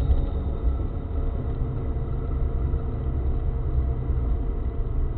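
Steady low rumble of road and engine noise inside a moving car's cabin, picked up by the dashcam, with a faint steady hum over it.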